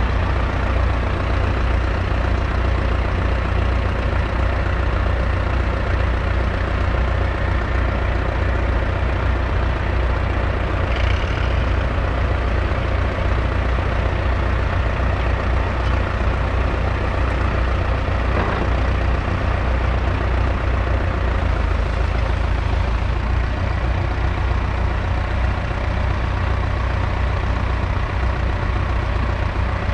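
1963 McCormick IH B414's 2.5-litre four-cylinder diesel engine running steadily, with a strong low hum.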